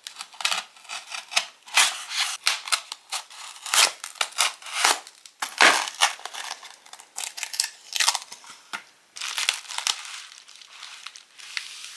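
Plastic packaging crinkling and tearing in irregular crackly bursts as a replacement phone display is unwrapped by hand.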